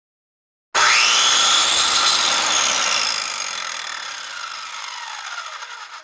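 Circular saw starting abruptly about a second in, loud and harsh, its blade whine rising briefly then sliding slowly lower as the sound fades, cutting off at the very end.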